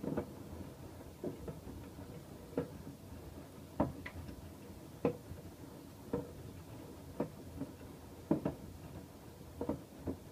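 AEG Öko-Lavamat washing machine drum turning with a load of laundry, the wash dropping in the drum with a soft knock a little more than once a second over a low rumble.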